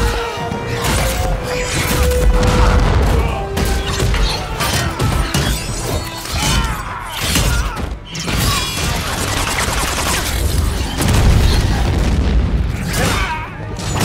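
Action-film battle soundtrack: a music score under a rapid run of hits, blade and shield clashes and booms from a melee fight.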